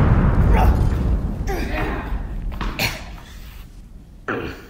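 Edited-in explosion sound effect dying away as a deep rumble over about four seconds. A few short thuds come over it, one at about three seconds and one near the end.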